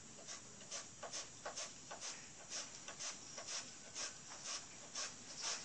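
Bananas being cut by hand for chips: short scraping strokes in a steady rhythm of about two a second.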